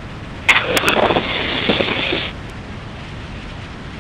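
Wind and road noise rushing over the helmet microphone of a moving motorcycle. About half a second in, a louder muffled burst with a few sharp clicks comes in for under two seconds, then the steady rush carries on.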